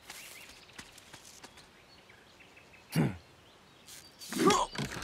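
Quiet forest ambience with a few short bird chirps, then an animated snowman's wordless vocal sounds: a falling 'hmm' about three seconds in, and louder effortful grunts near the end.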